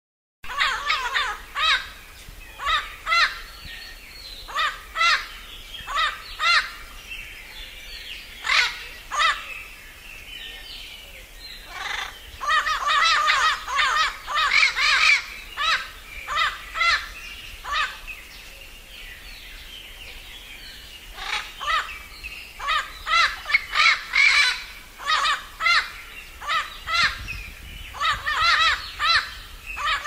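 Amazon parrot calling: a series of short, harsh squawks, one after another about every half second to second, with a denser, more chattering run in the middle and another near the end.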